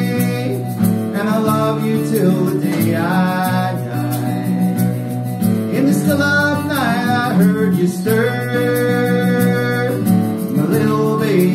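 A singer performing a song to guitar accompaniment, sung phrases over steady strummed chords.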